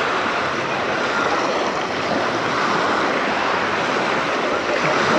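Sea waves washing onto the beach: a steady rush of surf.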